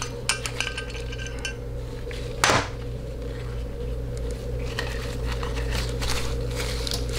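Small metal clicks and clinks of a 1-2 accumulator valve and its parts being worked out of the bore of a TH475 (TH400) transmission valve body and laid down, with one louder knock about two and a half seconds in, over a steady low hum.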